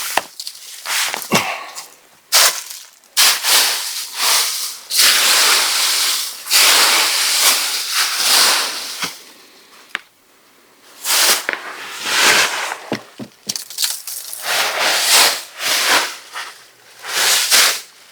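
Footsteps crunching and shuffling through dry fallen leaves, in irregular rustling bursts with a brief pause about ten seconds in.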